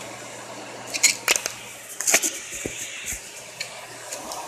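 Kitchen items clinking and knocking as they are rummaged through and handled: a scatter of sharp clicks, the loudest about one and two seconds in, with smaller ones after.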